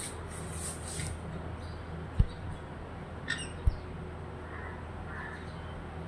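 A parrot feeding: scratchy crunching and soft clicks, with two brief dull thumps about two and three and a half seconds in. A steady low hum runs underneath.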